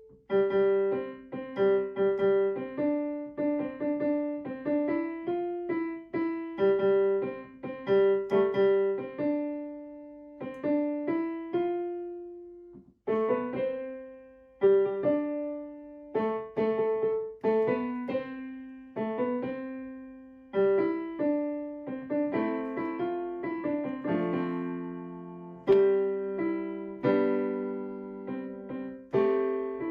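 Background piano music: a melody of struck notes that each fade away, over chords, with a brief break about halfway through.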